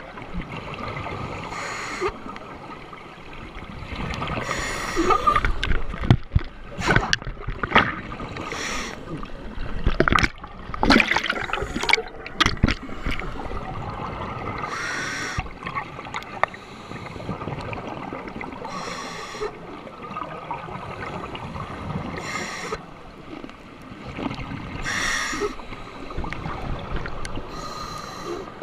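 Scuba diver breathing through a regulator underwater: a burst of exhaled bubbles every three to four seconds. A run of sharp clicks and knocks comes in the middle.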